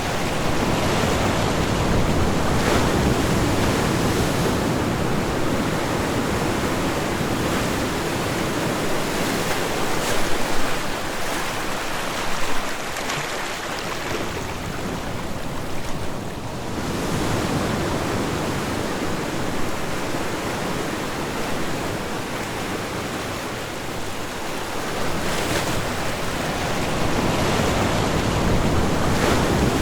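Ocean surf breaking and washing on a beach: a continuous rush of water noise that swells and ebbs every several seconds.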